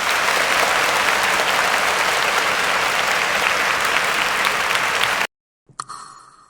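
Applause sound effect: a crowd clapping steadily, cut off abruptly about five seconds in. After a short gap comes a single sharp hit with a ringing tail that fades away.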